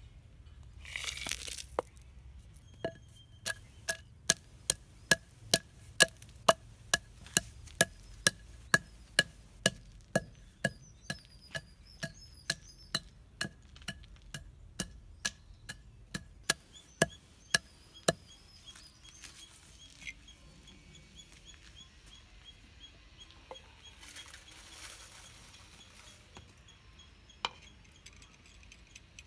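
Wooden pestle pounding dried red chillies in a stone mortar: a steady run of sharp knocks, about two and a half a second, each with a short ringing note. The pounding stops about two-thirds of the way through, leaving quiet handling and one more knock near the end.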